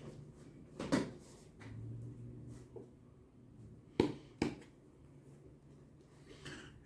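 Sharp knocks and clicks from shoe-repair handwork: one about a second in, then two close together about four seconds in.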